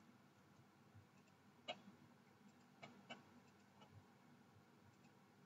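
Near silence, broken by a few faint computer mouse clicks, the clearest about a second and a half in.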